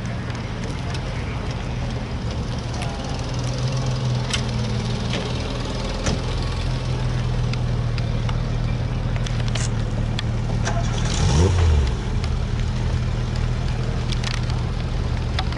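Opel Monza GSE's straight-six engine running steadily as the car drives slowly past. About eleven seconds in there is one brief rev that rises sharply in pitch, the loudest moment.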